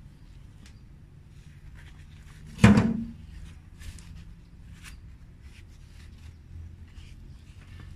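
A plastic plant pot knocks once, sharply, about a third of the way in, as a hibiscus root ball is worked out of it. Faint rustles and small clicks of gloved hands, soil and pot sound around it.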